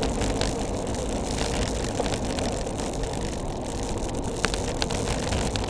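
Wind rushing over the microphone and tyre noise of a bicycle riding downhill on a road, with a few light clicks.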